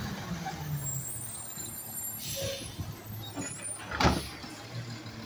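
Automated side-loader garbage truck's engine running, its note dropping in the first second, with a short hiss about two seconds in and one sharp, loud clunk about four seconds in.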